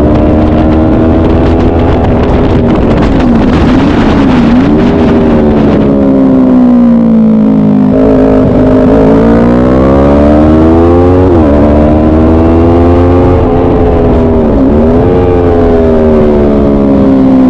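Motorcycle engine at speed on a track lap, its revs climbing and falling with several quick gear changes. Wind rushes over the microphone throughout.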